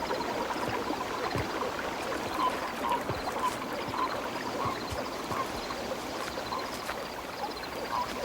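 Steady rush of water, with a soft, short call repeating about twice a second above it.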